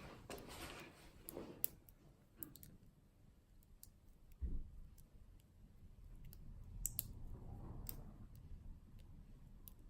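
Faint, scattered metallic clicks of a needle pick working the pins of a hand-held Schlage pin-tumbler lock during single-pin picking, with a dull thump about four and a half seconds in.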